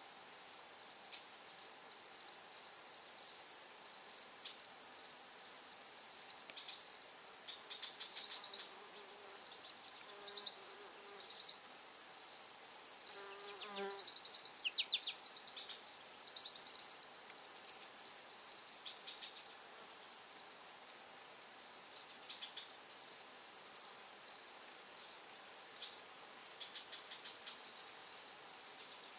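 Steady chorus of crickets and other insects, a continuous high trilling in two pitch layers, with a few faint brief chirps around the middle.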